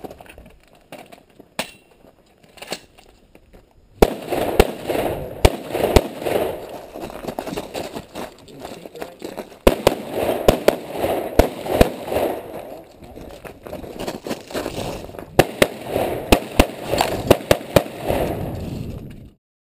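Rifle and shotgun shots fired in quick strings with short pauses between them, each shot followed by echo. They begin about four seconds in after a few light clicks, and the sound cuts off suddenly near the end.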